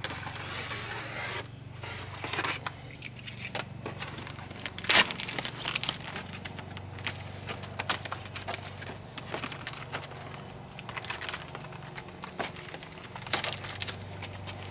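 Cardboard packaging being opened and handled: scraping, tearing and crinkling of card, with scattered sharp clicks and one loud crack about five seconds in.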